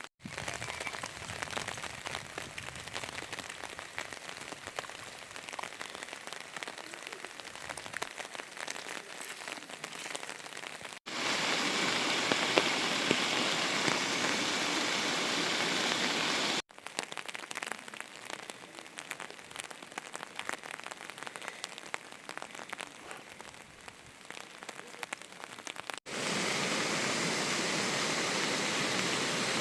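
Rain falling, heard in shots that cut abruptly from one to the next. In the quieter stretches the drops patter unevenly. About eleven seconds in, and again near the end, a louder, even rush of water takes over.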